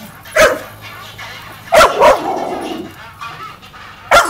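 Young puppy barking in short, sharp yaps: one bark, then a quick pair about a second and a half later, and another near the end.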